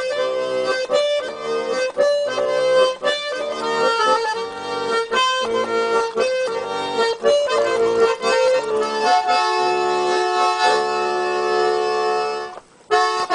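Garmon (Russian button accordion) playing an instrumental passage of a chanson song: rhythmic repeated chords, then longer held notes from about nine seconds in, with a brief break near the end.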